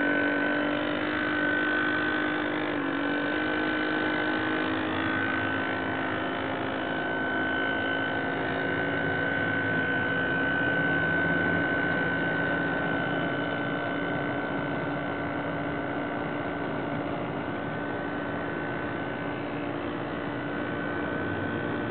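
Motor of a radio-controlled scale model Chris-Craft runabout, running steadily as the boat cruises out on the pond. It gives an even whine with a brief pitch dip about three seconds in.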